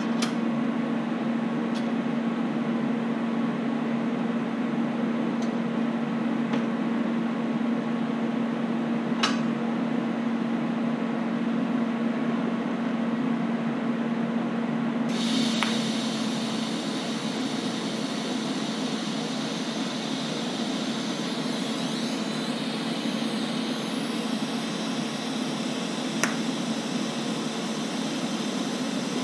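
Steady hum of running shop equipment with a few sharp clicks. About halfway through, a steady hiss from the welding arc joins in as the steel bracket pieces are tack welded.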